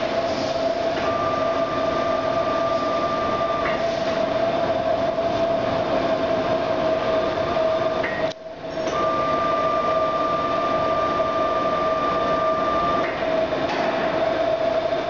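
1993 Nicco NSG-74S surface grinder running, with the steady hum of its hydraulic unit and spindle. A higher whine comes in twice for a few seconds each, and the sound cuts out briefly about halfway.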